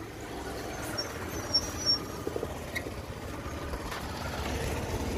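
Motor scooter running, a steady low rumble.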